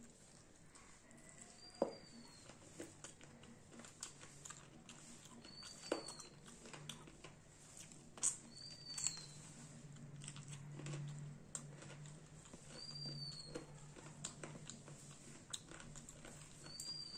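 Close-up eating sounds: chewing, lip smacks and small wet clicks as a woman eats rice and curry with her hand. A short high chirp comes about every three to four seconds behind it.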